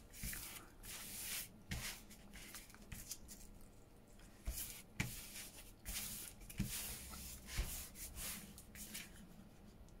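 Paper and card handled by hand on a craft table: irregular soft rustles and rubs, with a few light knocks.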